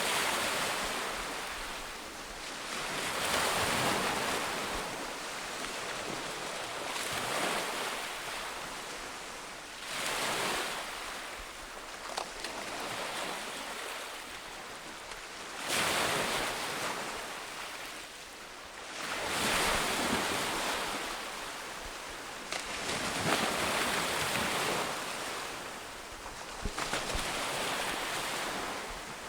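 Ocean waves breaking and washing up a beach, the surf swelling and fading in repeated surges every few seconds.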